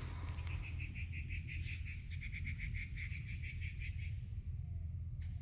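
An animal calling outdoors in a fast run of short, high chirps, about six a second, which stops about four seconds in, over a steady low rumble.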